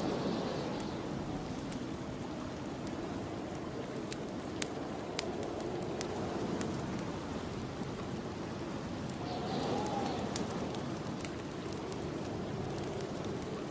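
Snowstorm wind blowing steadily, swelling in gusts with a brief whistle about ten seconds in, over a wood fire crackling with sharp scattered pops.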